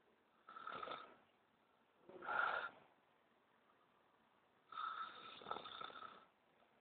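A man asleep with his mouth open, snoring: three snores a couple of seconds apart, the middle one the loudest and the last one the longest.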